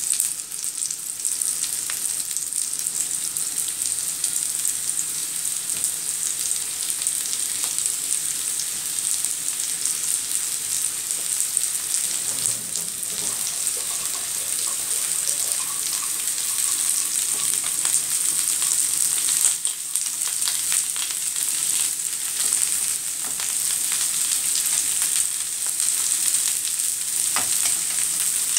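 Crushed boiled potatoes and sliced red onion frying in hot oil in a nonstick frying pan: a steady, dense sizzle with fine crackling.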